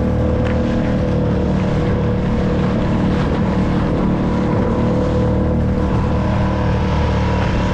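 Solo Skiff's small outboard motor running steadily at trolling speed, with water splashing along the hull.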